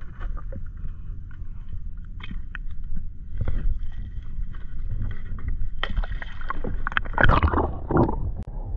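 Water sloshing and splashing at the surface beside the boat as a hooked fish is drawn up on the line, over a steady low rumble of wind on the microphone. There are scattered small clicks, and a louder splashing burst comes about seven seconds in.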